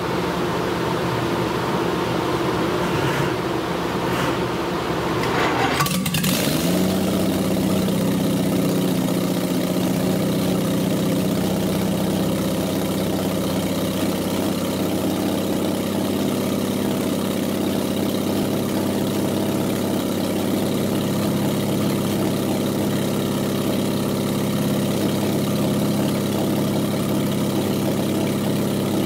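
Jaguar 2.4 L XK twin-cam straight-six on a test stand, starting up after a top-end rebuild. It catches and runs raggedly for about six seconds, then after a sharp crack settles into a steady, even idle.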